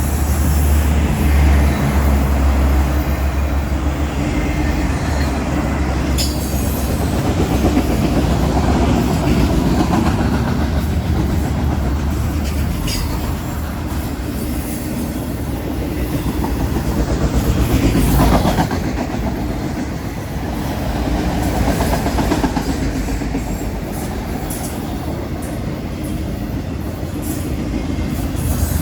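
CSX freight train's cars rolling past on the rails: a steady rumble with a few sharp knocks.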